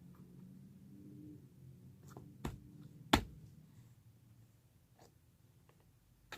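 Putty being handled by hand: faint soft handling noise with a few sharp clicks and pops, the loudest a pair about two and a half to three seconds in, and another near the end.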